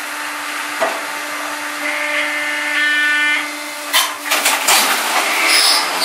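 Firewood saw-splitter processor running with a steady hum and a brief higher whine midway. From about four seconds in comes a run of loud knocks and cracks of wood being worked through the machine.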